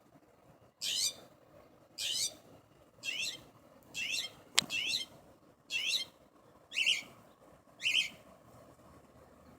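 A bird repeating the same short, fast, high warbling phrase about once a second, eight times, imitating a car alarm. A single sharp click sounds about halfway through.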